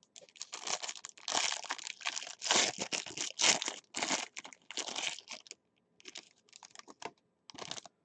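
Clear plastic wrap being torn and crinkled off trading-card packaging. Dense crackling runs for the first five seconds or so, loudest around three to four seconds in, then gives way to a few softer rustles.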